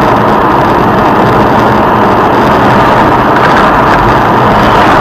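Loud, steady vehicle engine and road noise.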